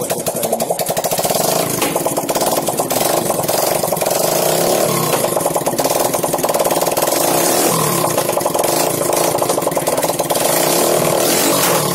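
Yamaha FZ single-cylinder motorcycle engine running with its silencer removed, the open exhaust firing as a loud, rapid, ragged popping. The engine speed rises and falls a few times.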